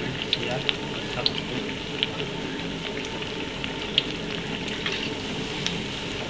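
Batter-coated banana fritters deep-frying in hot oil in a wok: a steady sizzle with sharp pops and crackles every second or so, the loudest about four seconds in.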